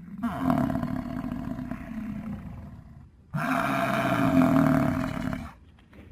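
Bison bellowing: two long, deep bellows, the second starting about three and a half seconds in.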